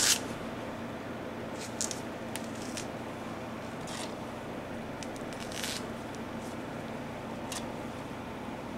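Banana peeled and broken by hand into a blender jug of milk and seeds: scattered soft rustles, squishes and light taps over a faint steady background.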